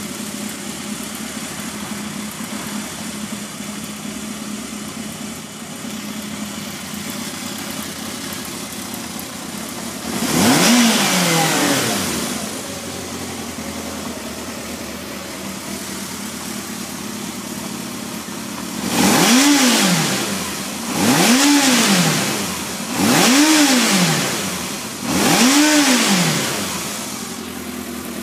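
Kawasaki KZ650B's air-cooled inline-four engine idling, blipped once about ten seconds in and then revved four times in quick succession near the end. Each rev rises and drops back to idle.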